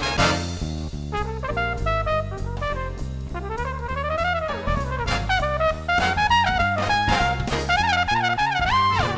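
Upbeat jazzy background music, a brass lead melody with bending notes over a steady bass and drum beat.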